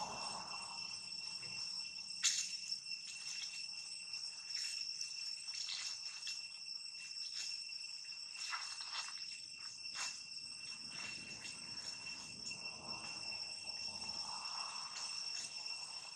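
Insects droning steadily at a high pitch, with scattered sharp clicks, the loudest about two seconds in.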